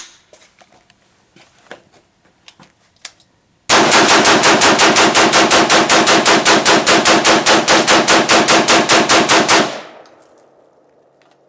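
High Standard HSA-15 AR-15 carbine in 5.56 NATO/.223 emptied in a mag dump. About four seconds in, a long run of rapid, evenly spaced rifle shots starts and lasts about six seconds, then stops with a ringing echo.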